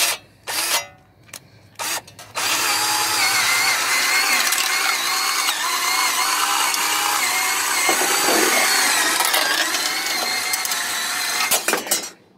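Electric drill fitted with a plate-shear attachment, given a few short trigger bursts and then run steadily for about nine seconds while the shears cut through Galvalume tin roofing sheet. The motor's pitch wavers throughout, and the sound stops shortly before the end.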